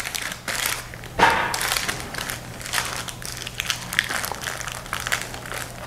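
Crinkling and rustling of cloth and grease paper being handled, a run of short scrapes with a louder one about a second in.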